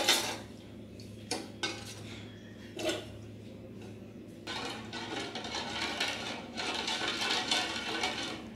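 Steel ladle scraping and knocking against a stainless steel saucepan while stirring heating milk over a low flame. A few separate knocks come in the first three seconds, then steadier scraping from about halfway.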